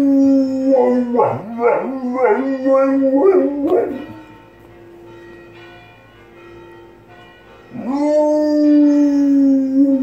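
Dog howling along to ringing church bells: a long held howl that breaks into wavering, yipping notes, then a few seconds where only the bells ring faintly, then another long howl near the end.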